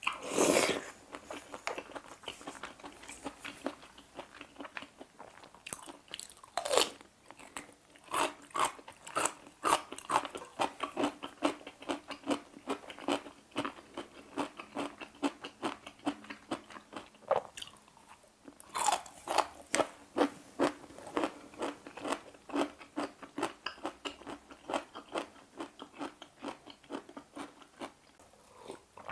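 Close-miked eating: a slurp from a bowl in the first second, then steady crunchy chewing of ponytail radish kimchi with many short crackling bites, with two more brief slurps, about a quarter and two thirds of the way through.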